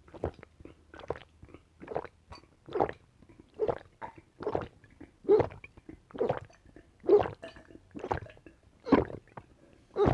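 A person gulping down coconut water in big, regular swallows, about one gulp a second.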